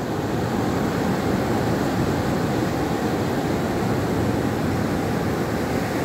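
Heavy storm-driven surf breaking offshore and washing up a sandy beach: a steady rushing roar with no letup.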